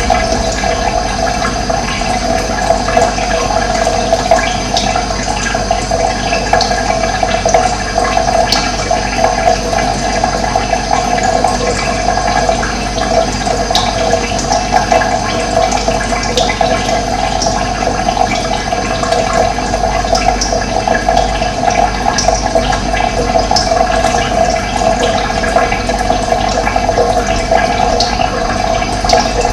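Steady rush of running water, with a few short bird chirps above it.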